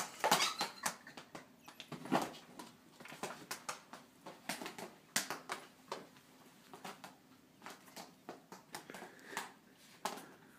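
A cat playing on a hardwood floor: irregular light taps and clicks of its paws and claws on the boards.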